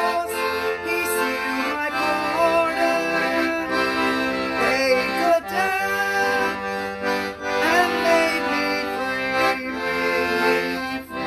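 A woman singing with her own piano accordion accompaniment, the accordion holding steady chords under her wavering sung melody.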